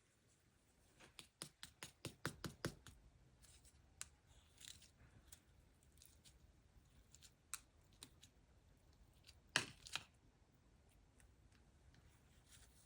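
Two-layer cloud slime being squeezed and stretched by hand, giving faint sticky crackles and clicks: a quick run of them in the first few seconds, a few scattered ones, and a louder crackle a little before ten seconds in.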